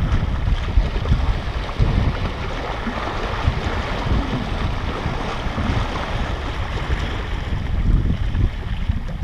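Wind buffeting the microphone in gusts over a steady wash of small waves, the wash swelling slightly midway.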